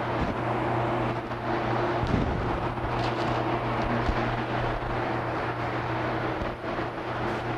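Spray gun hissing as it sprays lacquer, over the steady hum of running fans.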